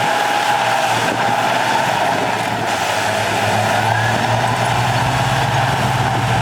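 Heavy earthmoving machinery running: a steady low diesel drone that grows stronger about halfway through, with a faint whine that slowly rises in pitch above it.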